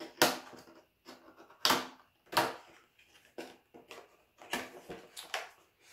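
Cardboard box being opened by hand: a string of short, sharp cardboard snaps and scrapes, about seven in all, as the flap is worked loose and the inner tray is slid out.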